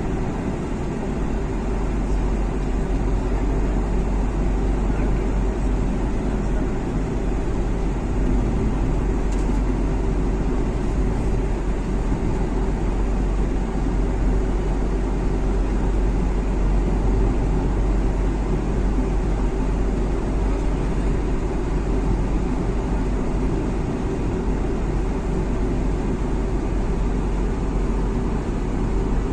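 Steady road and engine noise of a vehicle driving through a road tunnel, a continuous even noise heaviest in the low end.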